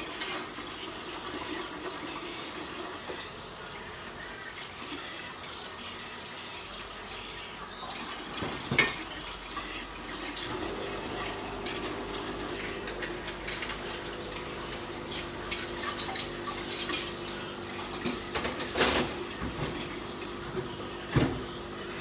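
Dishes and cutlery clinking now and then off camera, the sharpest clinks about 9 s and 19 s in, over a steady low hiss. A steady hum comes in about halfway.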